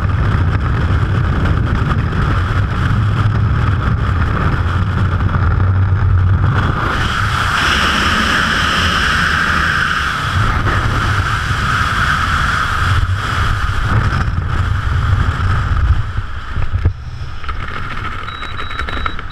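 Freefall wind rushing over a GoPro HERO3 Black camera: a loud, steady rush with a whistling band. The wind weakens about seventeen seconds in as the parachute opens and the fall slows, and a high, repeated beeping starts near the end.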